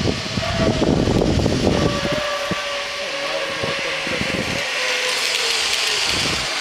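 Zipline trolley pulleys whirring along the steel cable as a rider comes in, a thin steady whine that slowly drops in pitch. Gusty wind on the microphone for the first two seconds.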